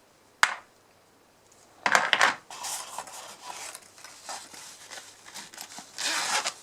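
Clamp-meter accessories and their packaging being handled on a table: a sharp click about half a second in, then rustling and light clattering from about two seconds on.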